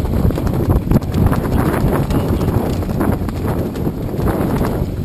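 Steady wind noise on the camera microphone, with irregular knocks and thumps throughout.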